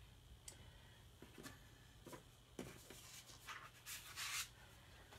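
Faint rustling and rubbing of a hand smoothing a cloth laid over window glass, with a few short scrapes, the loudest about four seconds in.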